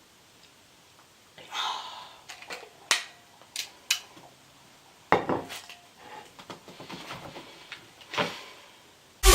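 Handling noises: a scatter of sharp clicks and short light clatters with brief rustles, like small hard objects being moved about and set down. Loud electronic music cuts in at the very end.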